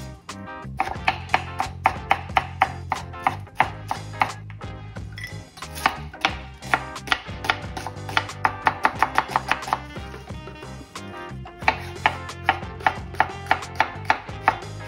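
Chef's knife striking a bamboo cutting board in quick, even strokes, about three a second, in runs with short breaks, as it slices bell pepper, onion and jalapeños. Background music with a steady bass runs underneath.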